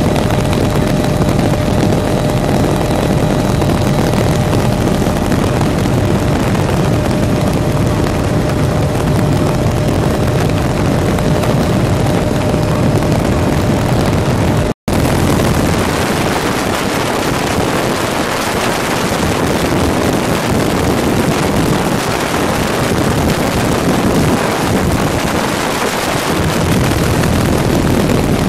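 Helicopter in flight with the doors off: a loud, steady rush of wind and rotor and engine noise in the open cabin. About halfway through the sound cuts out for an instant, and afterwards the deep rumble is weaker.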